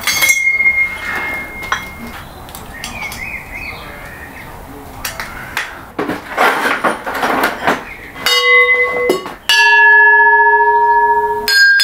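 Clanks and knocks of metal drill parts being handled, then a steel core drill bit struck with a metal tool and ringing like a bell with several clear tones. The loudest ring starts about two-thirds of the way in and lasts nearly two seconds, and another starts near the end.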